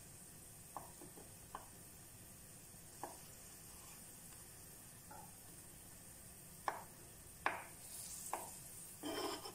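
Kitchen knife cutting hard-boiled eggs on a wooden cutting board: a few separate soft knocks of the blade on the board, then louder, quicker chopping strokes near the end as the eggs are diced.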